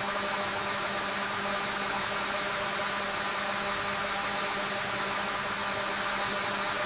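Machinery running steadily: an even mechanical hiss with a constant hum and a few steady whining tones, no strokes or knocks.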